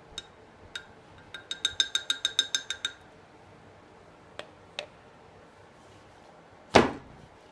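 A rapid run of about a dozen ringing clinks, like a utensil tapped against the rim of a hard container, then a few single clicks and one heavier thud near the end.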